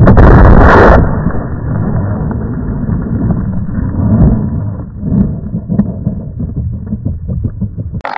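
Bixler 2 foam RC plane crashing into snow, heard through its own onboard camera: a loud impact in the first second, then a low rumbling with scattered knocks as it skids and tumbles through the snow and comes to rest.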